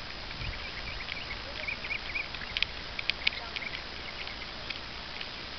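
Birds chirping in the open air, many short calls, with a few sharp clicks around the middle and a low wind rumble on the microphone.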